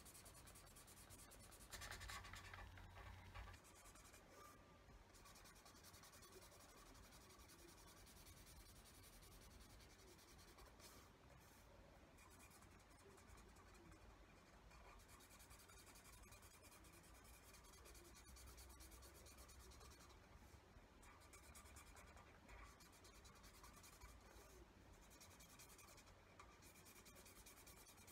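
Faint scratching and rubbing of a pen colouring in on paper, a little louder for a moment about two seconds in.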